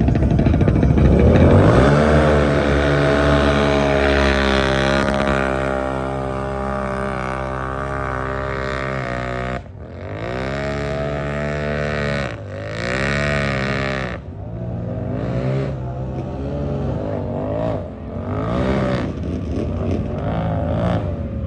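Off-road racing vehicle's engine revving up about two seconds in and held at high revs for several seconds. It drops off sharply about halfway through, then runs in a series of short revs.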